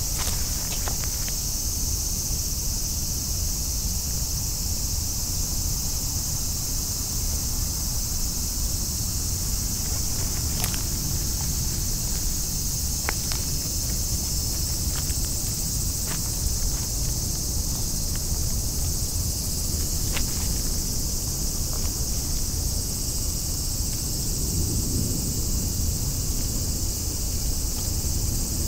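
Insects droning in a steady high-pitched chorus, over a low rumble, with a few faint clicks.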